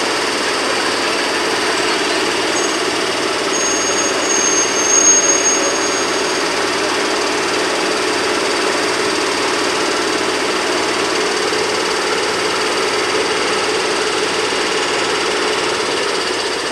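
Steady mechanical running of a locomotive standing with a freight train, an engine-like drone with a faint knocking pulse. A brief high, thin whistle sounds about four seconds in.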